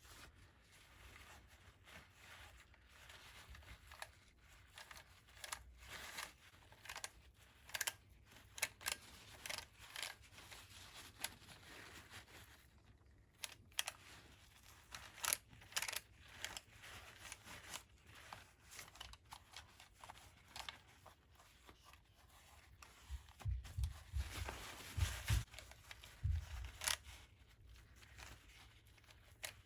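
Scratchy wiping and scrubbing on the plastic case of a Sharp EL-122 calculator as it is cleaned with general-purpose cleaner, with scattered light clicks and a few dull handling bumps near the end.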